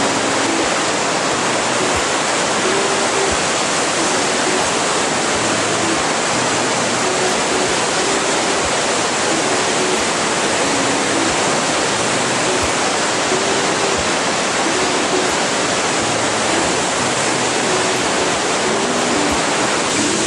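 Whitewater river rapids rushing loudly below a suspension bridge: a steady, even noise of fast-flowing water that does not let up.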